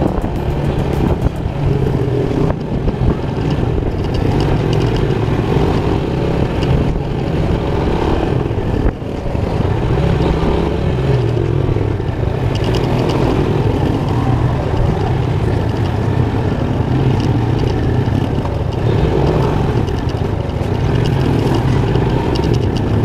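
Motorcycle engine running steadily while riding along a street, heard from the rider's seat, with road and wind noise; briefly quieter about nine seconds in.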